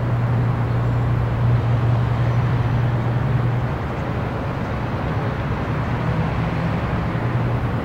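Steady low rumble with hiss, a traffic-like background noise. The rumble is strongest for the first few seconds and eases a little after.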